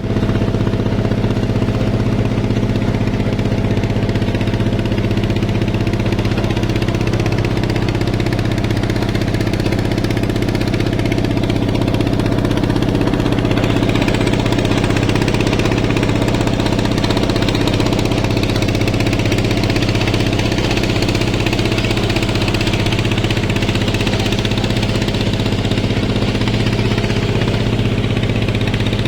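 Boat engine running steadily at a constant speed, with a low, even drone.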